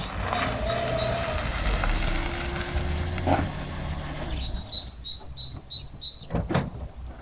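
Toyota Corolla hatchback driving slowly up a dirt driveway and coming to a stop, its engine and tyres making a steady rumble. A bird then chirps a quick run of high notes, and two sharp clicks come near the end.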